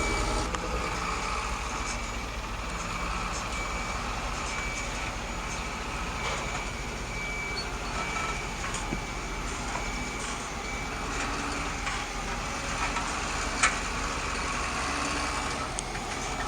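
Electronic reversing beeper of an RC construction model, beeping at an even pace over steady mechanical noise, with one sharp click late on.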